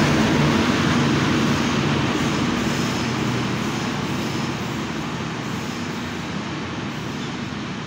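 Humsafar Express passenger coaches rolling past at speed, a steady rumble and rattle of wheels on the rails that slowly fades as the train draws away.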